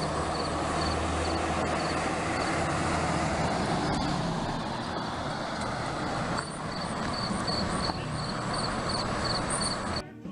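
An engine running steadily, with short high chirps repeating over it; the sound cuts off abruptly near the end.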